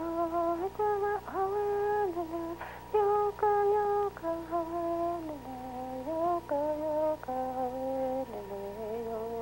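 Background music of a woman's voice humming a slow melody of held notes that drifts lower in pitch, over a steady electrical hum.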